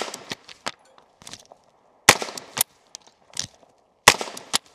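AR-style carbine firing slow, deliberate single shots: two loud cracks about two seconds apart, a shot just before also ringing into the start, with fainter cracks in between. This is slow fire to find the sight-to-bore offset.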